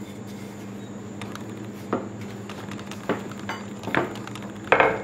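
Kitchen utensils knocking and clattering on a work surface: several light knocks spread over a few seconds, then a louder clatter of two close hits near the end.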